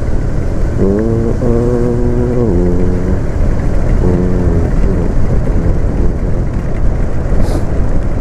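Steady rumble of a motor scooter ride on a wet road: wind on the microphone, engine and tyres. A wordless tune rises over it in two stretches, about one second in and again about four seconds in, and a short hiss comes near the end.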